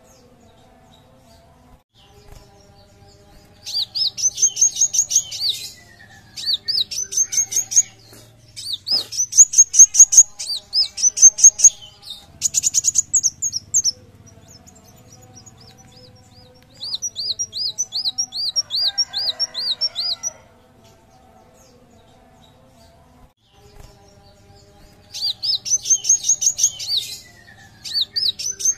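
Male kolibri wulung sunbird singing in vigorous bursts. Each phrase is a fast run of high, rapidly repeated chirps lasting one to three seconds, and short quiet pauses separate the phrases.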